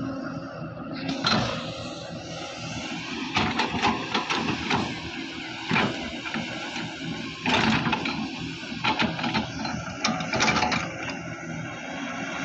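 Excavator's diesel engine running steadily, with repeated irregular scraping and clattering bursts as the bucket digs into earth and rock.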